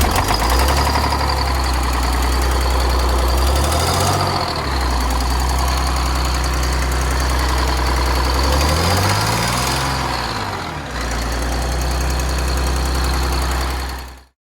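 Cold Detroit Diesel 6V92 two-stroke V6 diesel, with a leaking exhaust manifold gasket, firing up and running with a steady high whine over it. The revs rise and fall briefly about four seconds in and again around nine to ten seconds. The engine cuts off just before the end.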